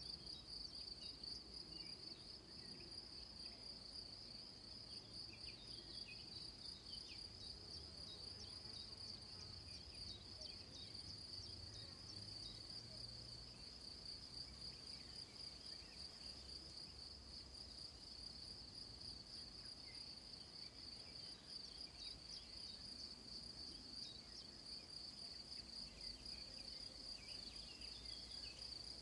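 Crickets chirping in a continuous, rapidly pulsing high trill, faint and steady, with a few short softer chirps scattered through it.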